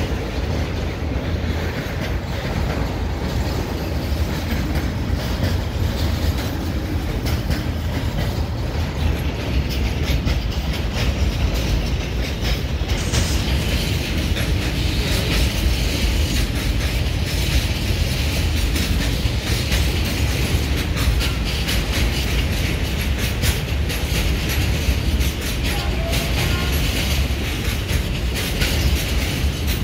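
Freight train wagons rolling past close by: a steady rumble of steel wheels on the rails with a running clatter of wheel clicks over the rail joints, which turns sharper and busier about 13 seconds in.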